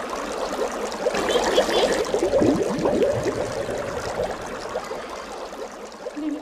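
Water gurgling and bubbling with a quick run of small bubbly blips, loudest around the middle and easing off towards the end.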